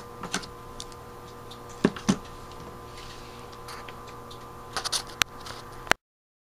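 Light clicks and taps of small metal tools and carburetor parts being handled and set down on a workbench, over a steady background hum. The sound cuts off abruptly near the end.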